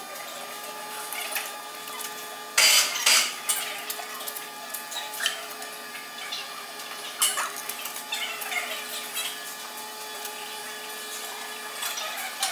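Workshop noise of hand work on a steel locomotive truck: scattered metallic knocks, clinks and scrapes over a steady hum, with a loud harsh burst of noise lasting under a second about two and a half seconds in and a sharp clank a little past seven seconds.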